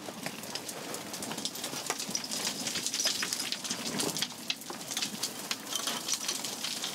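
A person crawling on his belly through a narrow rock crevice: coveralls scraping on rock and loose sand and grit crunching under him, a dense run of small scrapes and crackles.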